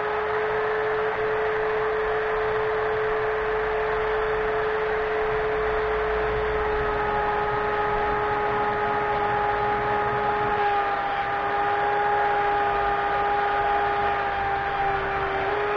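Benchtop belt sander running with a steady motor whine, and the hiss of the abrasive belt grinding a curved block of wood pressed against it.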